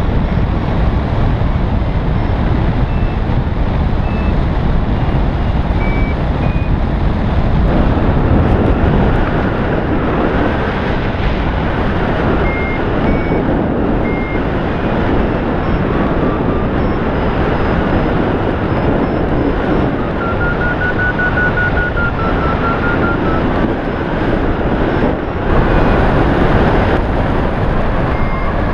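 Steady rush of wind on the microphone of a hang glider in flight, with a variometer beeping in short notes whose pitch shifts up and down as the climb rate changes.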